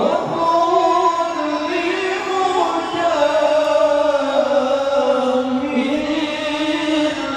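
Voices chanting together in long, drawn-out notes that glide slowly up and down in pitch: Islamic devotional chanting (zikir).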